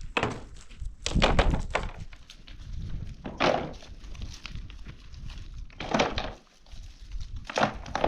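Dull thunks, about half a dozen at irregular intervals, the loudest cluster about a second in.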